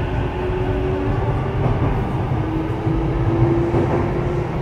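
Sotetsu 12000 series electric train running, heard from inside motor car MoHa 12501. A steady low rumble of the running gear sits under a faint motor whine that dips about halfway through and then climbs slowly in pitch.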